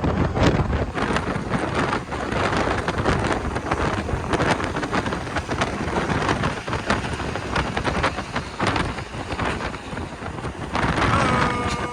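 Wind buffeting the phone's microphone over vehicle road noise, with a dense crackle. Near the end a steady pitched tone begins.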